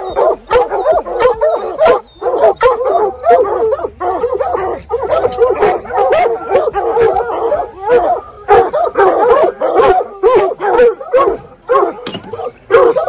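A pack of bear hounds baying and yelping together, many overlapping calls with hardly a break.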